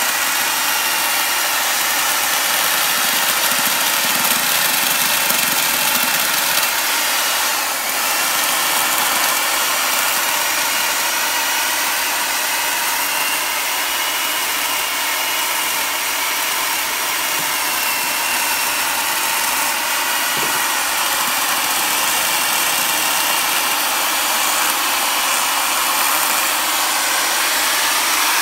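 Small corded electric chainsaw running steadily as its chain cuts into the deadwood of a bonsai trunk, its pitch wavering slightly with the load. The cut eases briefly about eight seconds in.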